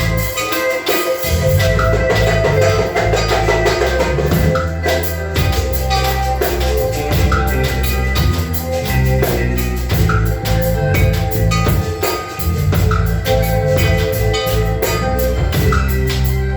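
Music with a drum kit and percussion keeping a steady beat under sustained melodic tones.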